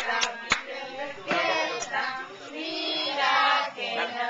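A group of voices, children's among them, singing a song together in long held notes, with a few sharp clicks in the first two seconds.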